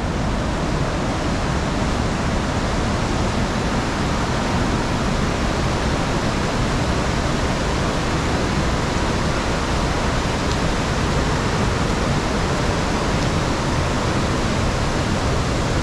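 Steady rush of fast-flowing stream water in a gorge, an even, unbroken noise of water.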